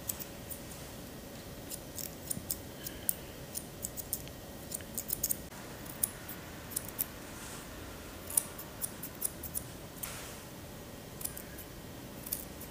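Steel grooming shears snipping through a poodle's fur around the muzzle, a string of crisp, irregular clicks, some in quick runs of several snips, over a faint steady hum.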